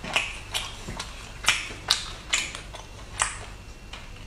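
Close-miked chewing of a mouthful of poultry meat: short wet mouth smacks and clicks, about two a second.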